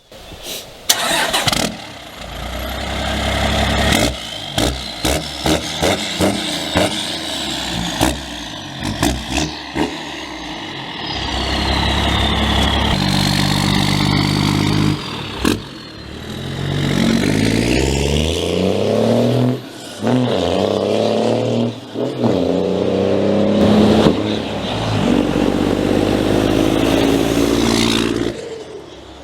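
2008 Dodge Ram 3500's 6.7-litre Cummins turbo-diesel running and revving. The pitch climbs several times, with sudden breaks in between.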